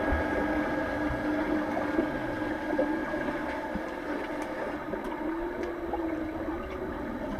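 Underwater pool ambience heard through a submerged microphone: a steady hum and wash of water, with a few faint clicks in the second half.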